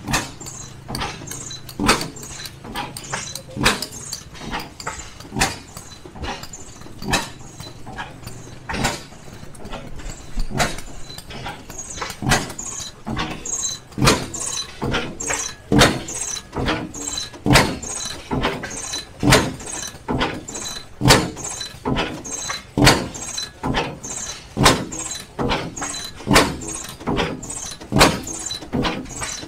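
Rider-Ericsson hot air pumping engine running and pumping water into a bucket, with a regular knock about once a second.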